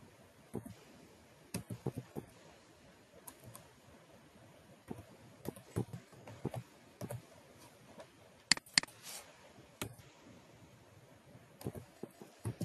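Typing on a computer keyboard: keystrokes in short irregular runs with pauses between them, and two louder, sharper clicks about eight and a half seconds in.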